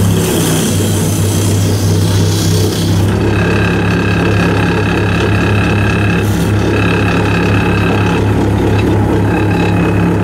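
Wood lathe running with a steady motor hum while a chisel cuts the spinning wooden blank, with a hissy cutting noise for the first few seconds. From about three seconds in, a high whine comes and goes over the hum.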